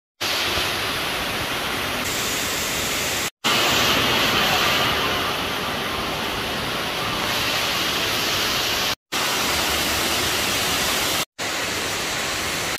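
A steady, even rushing noise with no voices or tones in it, dropping out abruptly for an instant a few times.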